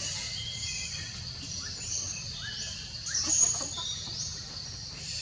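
Overlapping high-pitched animal chirps and short rising squeaks, with a louder cluster of calls about three seconds in.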